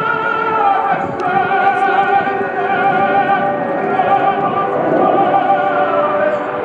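Music: an operatic voice singing long notes with a wide vibrato.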